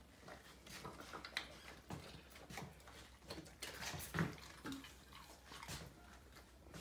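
A Siberian husky eating dog food softened with warm water from a metal bowl: quiet, irregular chewing with small clicks.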